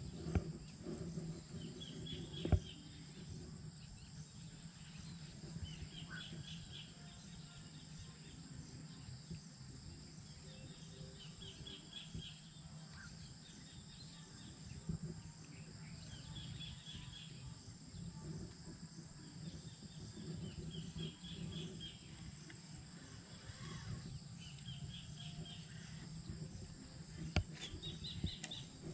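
Pond-side ambience: a steady high insect drone, with a short run of quick, high notes from a calling animal repeating every three to four seconds. There is a single sharp knock about two and a half seconds in.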